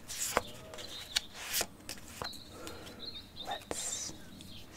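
Pokémon trading cards being handled, giving a scatter of sharp clicks and taps with a brief rustle. A bird chirps faintly in the background around the middle.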